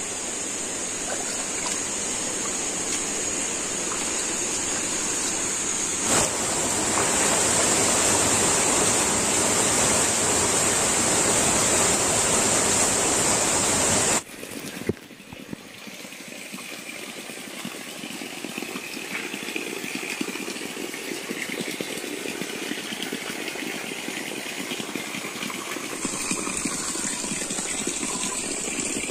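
Steady rushing noise of running water, with a steady high-pitched whine above it. About halfway through the sound cuts abruptly to a softer, thinner rush, and the high whine comes back near the end.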